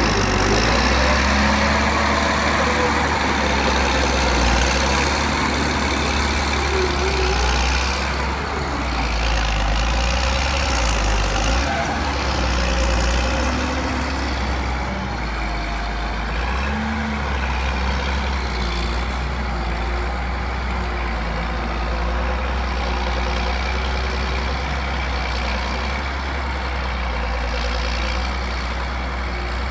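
Heavy diesel construction machinery and dump trucks running, a steady low engine rumble with the pitch shifting now and then.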